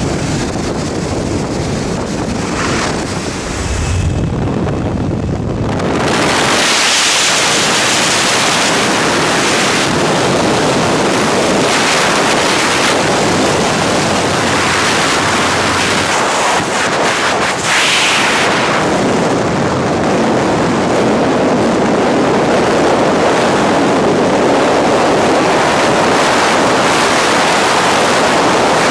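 Wind rushing over the camera microphone: first the slipstream at a jump plane's open door, then, from about six seconds in, a louder, steady rush of freefall wind.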